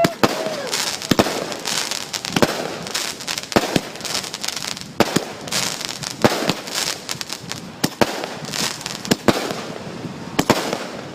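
A multi-shot consumer fireworks cake firing shot after shot, about ten sharp bangs roughly a second apart, with dense crackling between them.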